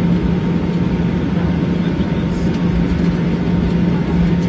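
Engine noise heard inside the cabin of a Boeing 737-800: a steady, loud drone with a constant low hum through it.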